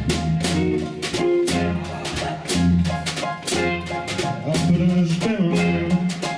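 A band playing a song: a drum kit keeping a steady beat under bass and other sustained instrument notes.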